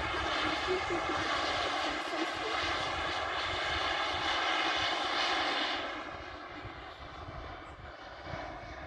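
Engine of a model BD-5 aircraft running steadily with a high, many-toned whine. It gets quieter about six seconds in, as though the plane is moving away.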